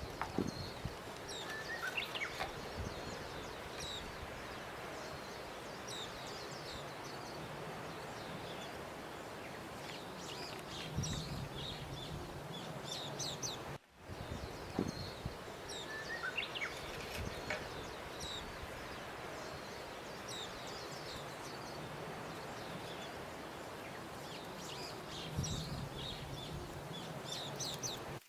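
Outdoor nature ambience: small birds chirping over a steady outdoor hiss. The pattern breaks off briefly and starts over about every 14 seconds, a looped background track.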